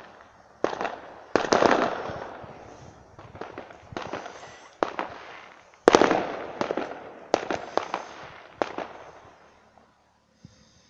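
A run of sharp bangs at irregular intervals, each dying away over a second or so, the loudest about six seconds in; they stop shortly before the end.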